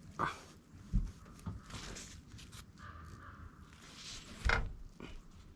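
Hands patting seasoning into a raw trout: soft rustling with a few light knocks, the loudest near the end.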